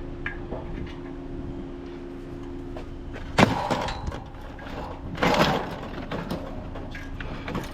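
Curbside scrap being handled and loaded: two loud clattering crashes, one about three and a half seconds in and a longer rattling one about five seconds in, over a steady low hum.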